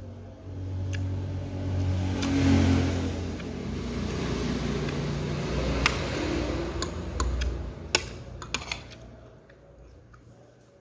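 A motor vehicle engine passing by, swelling in loudness and then fading away. A few light clinks of a metal spoon and fork come through near the end.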